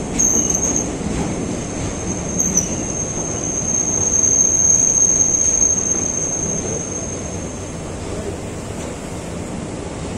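Train running across a steel truss bridge: a loud rumble of wheels on track, with a thin high wheel squeal that starts just after the beginning, drops out briefly, then holds steady until about eight seconds in.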